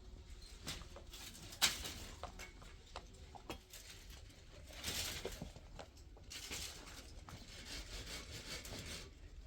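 Wood being worked by hand: scattered knocks and scraping, with a sharp knock about one and a half seconds in and longer rasping passes near the middle and the end.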